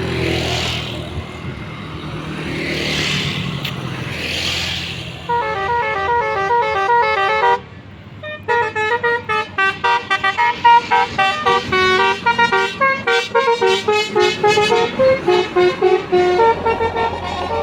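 A bus's multi-tone telolet air horn, Basuri type, playing a quick melody of short alternating notes. It starts about five seconds in, breaks off briefly, then runs on as a fast string of short notes. Before it come three short bursts of hissing.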